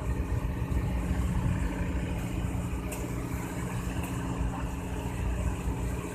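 Fishing boat's engine running steadily with a low rumble and a constant hum, with water rushing along the hull as the boat moves.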